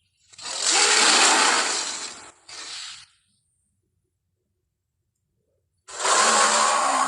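A person's voice making a creature's hoarse, breathy growl-like exhalations as an imitation of Andrewsarchus: a long one, a short one right after, then another long one starting near the end after a pause.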